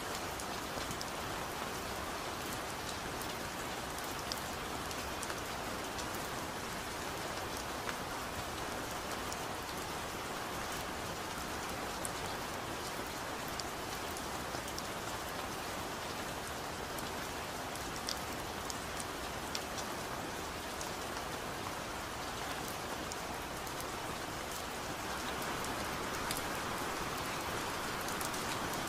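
Steady rain falling on leaves: an even hiss with scattered sharp drip ticks, growing a little louder in the last few seconds.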